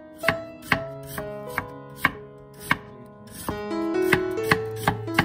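Kitchen knife slicing raw lotus root on a wooden cutting board: a series of crisp chops as the blade cuts through and knocks the board, about two a second and coming faster near the end. Soft background music plays underneath.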